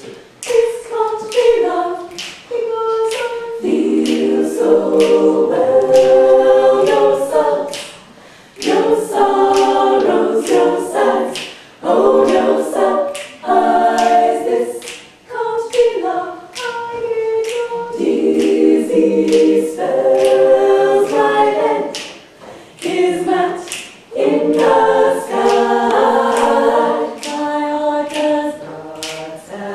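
All-female a cappella group singing a song in close harmony, in phrases with short breaths between them, over a steady beat of sharp clicks about twice a second.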